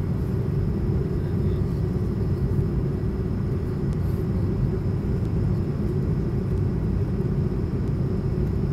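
Steady low cabin drone inside an Airbus A220-300 in flight on its descent: engine and airflow noise heard from a window seat, even and unchanging.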